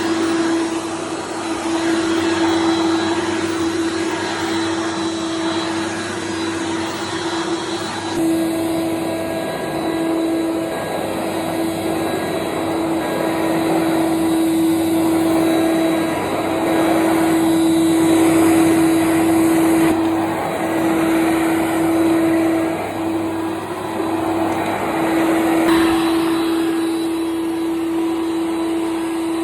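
Vacuum cleaner running steadily: a motor hum with air rushing through it. The hum briefly drops out a few times.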